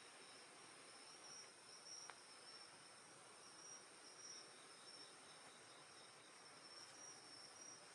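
Faint insects singing on a summer night: a steady, high-pitched chirring with a pulsing trill, over an even hiss. One faint tick about two seconds in.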